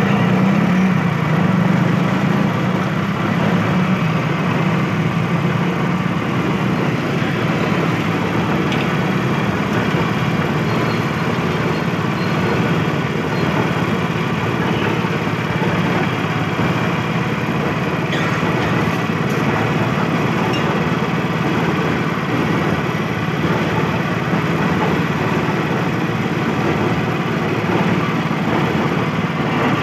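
Sugarcane juicer running steadily, its motor humming as its rollers crush a stalk of sugarcane fed through it.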